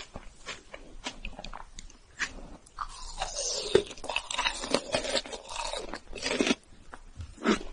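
Close-miked biting into a chocolate-coated ice cream bar on a stick, then crunchy chewing. A few sharp wet mouth clicks come first, and a dense crunching starts about three seconds in and stops shortly before the end.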